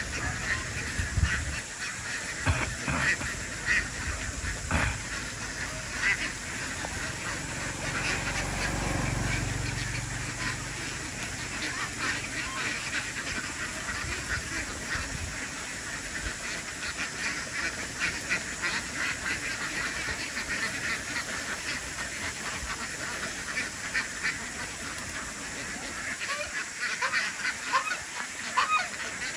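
A large flock of domestic ducks quacking continuously, many calls overlapping into a dense chatter. A brief low rumble comes in about eight seconds in.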